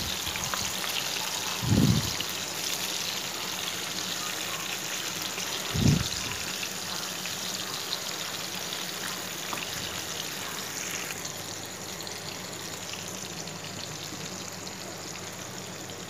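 Whole marinated fish shallow-frying in oil in a nonstick pan: a steady sizzle that eases slightly in the second half. Two dull thumps, about two and six seconds in, as the fish are turned over with a spatula.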